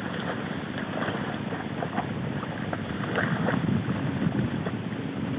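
Wind buffeting the microphone: a steady low rumble, with a few faint ticks.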